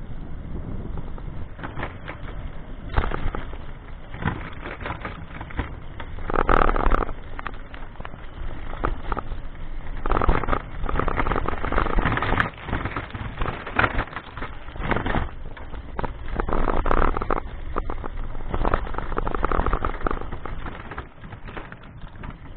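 Rattling and knocking from a camera on a moving vehicle jolting over a rough road, with surges of wind rushing over the microphone.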